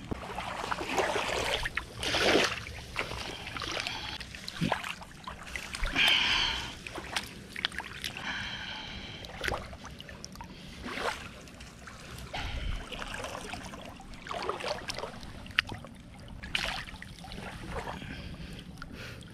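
Hands splashing and sloshing in shallow water, in irregular splashes, with small waves washing in.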